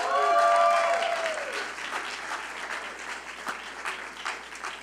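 Audience applauding, with voices cheering over the clapping in the first second or so; the applause gradually thins out.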